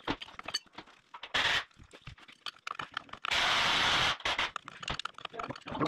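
Power impact wrench running the bolts into an excavator final drive in two bursts: a short one about a second and a half in, and a longer one a little past halfway. Light metallic clinks and scrapes of bolts and sockets come between.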